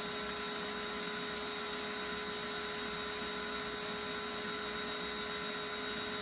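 Steady electrical hum made of several fixed tones over a faint even hiss.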